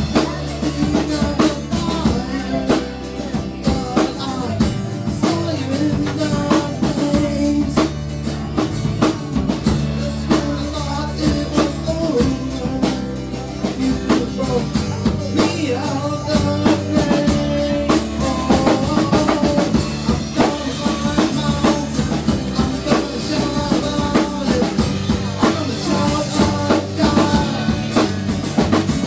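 Live praise-and-worship band playing a song: a steady drum-kit beat with guitars.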